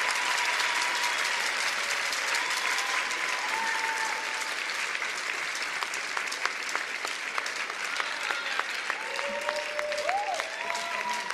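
Arena audience applauding, the clapping slowly dying down so that single claps stand out more toward the end, with a few faint voices from the crowd.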